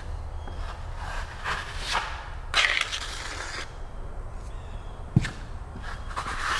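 Steel drywall trowel scraping across the drywall as it spreads joint compound in light, skipping strokes for a skip-trowel texture: several scraping strokes, the strongest about two and a half to three and a half seconds in, with one sharp knock about five seconds in.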